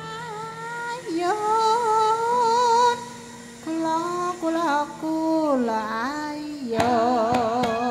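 Javanese gamelan music (karawitan): a female solo singer holds long, ornamented notes with a wavering, sliding pitch over steady sustained gamelan tones. Near the end, drum strokes and struck gamelan notes come in and the ensemble grows busier.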